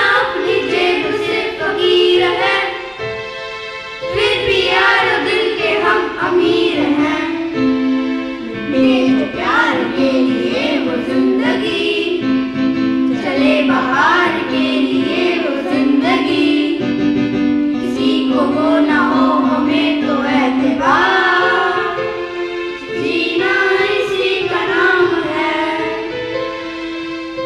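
A children's group singing a Hindi song in unison with instrumental accompaniment, in long held, gliding melodic lines.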